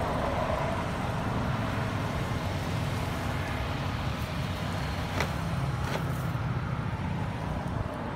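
Steady low rumbling background noise, with a couple of short faint clicks about five and six seconds in.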